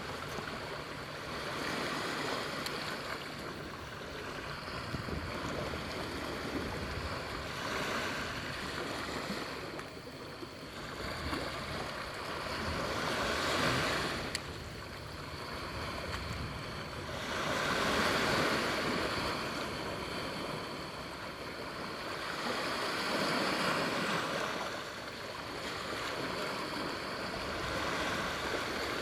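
Waves breaking and washing on a shore, swelling and falling back about every four to five seconds.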